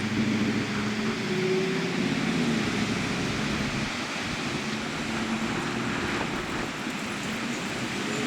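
Steady rush of storm wind and rain, with a low engine hum from passing traffic over the first few seconds and again about five seconds in.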